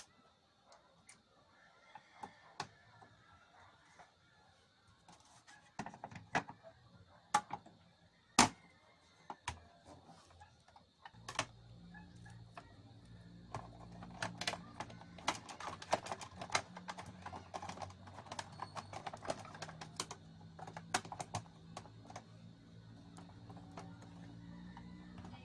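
Scattered sharp clicks and knocks, several louder ones clustered a third of the way in. Then a steady low hum starts and carries on, with rapid clicking over it.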